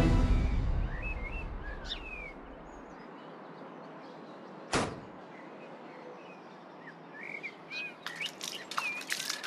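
Small birds chirping, with a music cue dying away at the start. One sharp click comes about halfway through, then a run of clicks and knocks near the end as the small door in a metal yard gate is opened.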